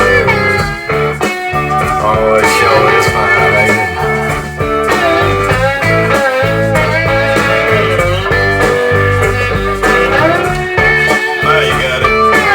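Blues-rock band recording in an instrumental stretch: a slide guitar plays bending, gliding notes over bass and drums, with no singing.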